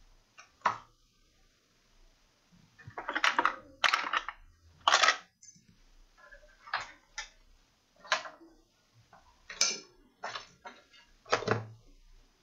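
Workbench handling noises: multimeter test probes, tools and the opened laptop being moved and set down, giving about ten short, irregular clicks and clatters, the loudest a few seconds in.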